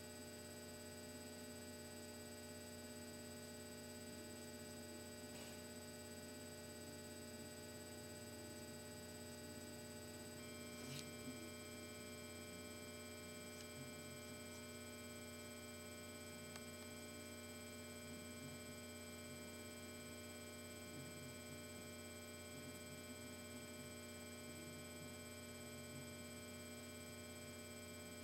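Faint, steady electrical mains hum with several steady whining tones above it. A soft click comes about eleven seconds in, and another steady tone joins just before it.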